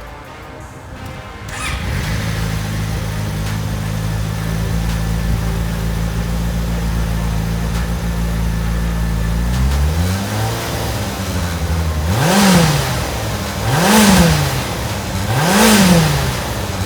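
Yamaha motorcycle engine starting about a second and a half in and idling steadily, then revved three times in quick succession near the end, each rev rising and falling in pitch.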